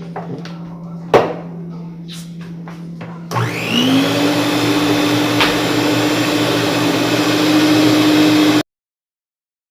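A sharp knock about a second in, then an electric kitchen blender switches on a little after three seconds, its whine rising quickly to speed and then running steadily as it blends cake batter, until it cuts off suddenly.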